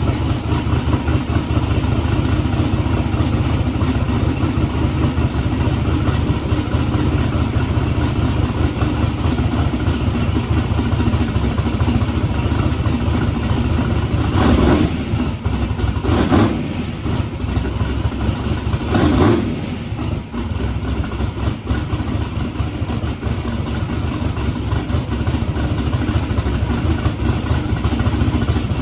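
Twin-turbo small-block Ford V8 idling, with three quick throttle blips about halfway through.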